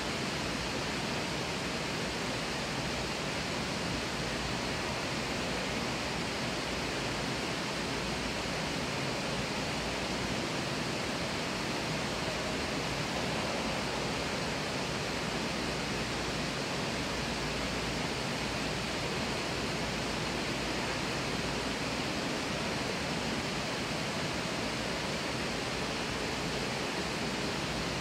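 Steady, even rushing of water from an indoor waterfall and stream in a hotel atrium.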